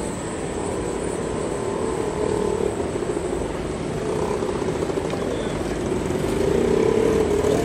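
Vintage tram running toward the listener on a curve: a steady droning hum over street noise, growing louder over the last second or so as it comes close.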